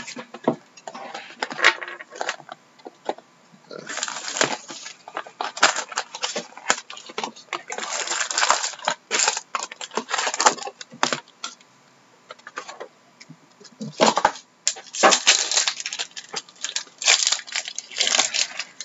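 Foil-wrapped trading card packs and their cardboard hobby box being handled: irregular crinkling and rustling of wrappers with small clicks and knocks as packs are pulled from the box and stacked on a table.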